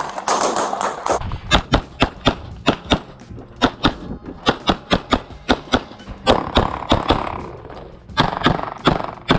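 Rapid pistol shots fired in quick strings, about four a second, with a short pause partway through, then a gap and a few more shots near the end.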